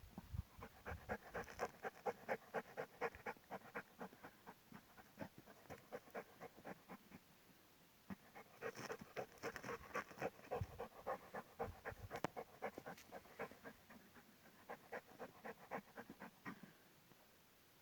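A dog panting fast, in long runs of quick breaths several a second, with a couple of short pauses.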